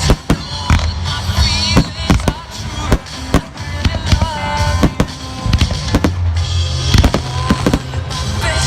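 Fireworks going off in quick, irregular bangs over loud music played through the arena's sound system, with a few short whistles among the bursts.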